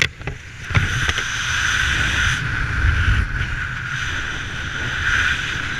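Wind rushing over a skydiver's helmet-mounted camera, a steady rumbling buffet on the microphone, with a couple of sharp clicks about a second in.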